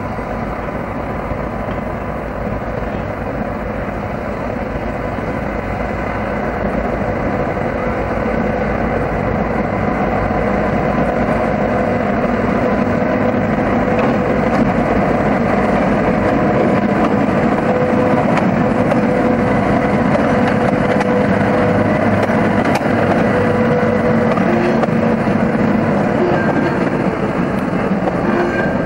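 Diesel-electric locomotive P22, a V/Line P class, running light with its diesel engine working steadily. It grows louder over several seconds as the locomotive draws near, then holds level.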